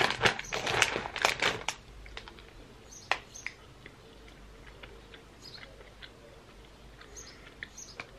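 Plastic snack packet crinkling and rustling in the hands for the first couple of seconds, then faint chewing with a few soft clicks.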